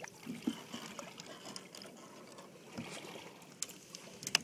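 Water lapping and trickling against a boat's side, with a few faint clicks and knocks and a sharper click near the end.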